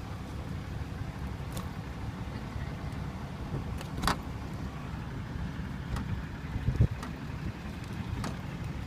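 Handling of a 2015 Kia Sorento's liftgate with a defective latch that won't catch: a few short clicks and a dull knock just before seven seconds as the hatch is pushed near the latch, over a steady low rumble.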